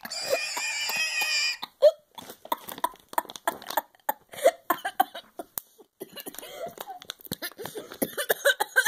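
A girl laughing hard: a long, high-pitched squealing laugh, then a string of short, breathless gasps and coughs.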